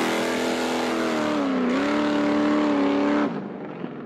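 Off-road buggy engine running hard at high revs over loud gravel and tyre noise, the revs dipping briefly about halfway through and climbing back. The sound cuts off suddenly about three quarters of the way in, leaving a much quieter background.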